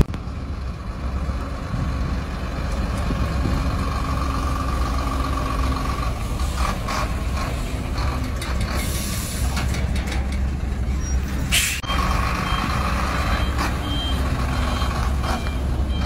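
Diesel engine of a heavy tractor-trailer truck running as it manoeuvres, with a reversing alarm beeping in short repeated pips. A short hiss of air from the brakes comes about twelve seconds in.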